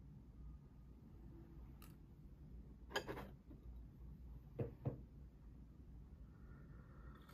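Quiet room tone with a few small clinks and taps of a ceramic mug and saucer: a sharper clink about three seconds in, then two quick taps a moment later.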